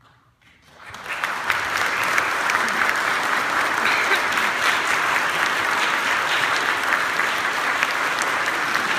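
Audience applauding a choir. Out of near silence it begins about a second in, builds quickly to steady clapping and holds there.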